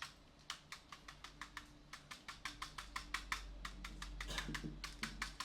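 Toy hammer tapping rapidly: a run of light, sharp clicks, about six a second, that quicken in the second half. A low hum joins about two seconds in.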